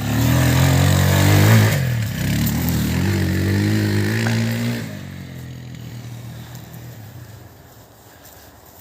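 Shineray 200 enduro motorcycle's single-cylinder engine being revved: the pitch climbs to a peak about a second and a half in, drops, then holds steady. From about five seconds in the engine sound fades away.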